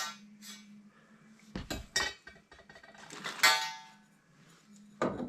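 Metal clinking and clanking as copper pipe and tools are handled. A few separate knocks, and one clink about three and a half seconds in that rings briefly.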